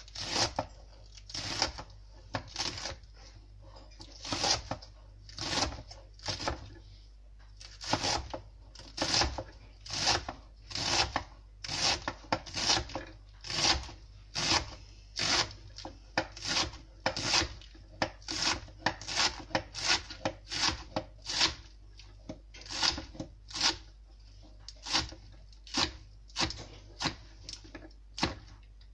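Kitchen knife slicing through lettuce on a chopping board: a steady run of crisp cutting strokes, about one and a half a second, as the leaves are shredded.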